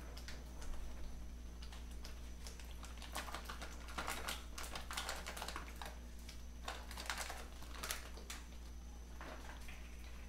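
Plastic pouch of sliced mushrooms crinkling as it is squeezed and emptied into a wok of spaghetti sauce: a rapid run of small crackles and clicks, busiest in the middle of the stretch.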